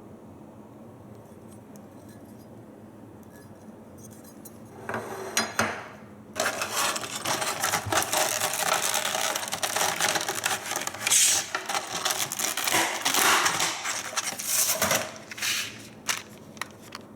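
Rustling and clinking as the packaging and metal parts of a wall bracket are handled: a few seconds of quiet, then a long stretch of dense handling noise with many sharp clicks, easing off near the end.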